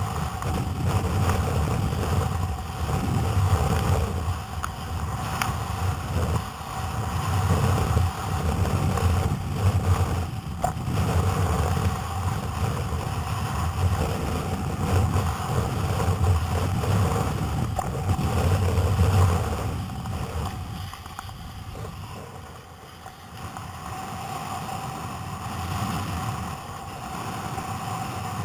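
Wind buffeting the microphone over choppy sea water splashing and rushing close by. The low wind rumble eases about two-thirds of the way through, leaving the water noise.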